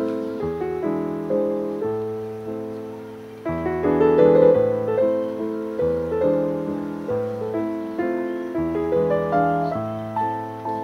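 Slow, gentle piano music: chords and a melody, each note struck and fading away, with a fuller chord coming in about three and a half seconds in.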